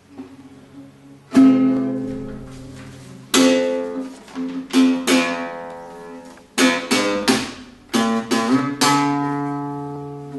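Nylon-string classical guitar played solo: a few soft notes, then chords strummed about a second and a half in and at irregular intervals after, singly and in quick groups, each left to ring out.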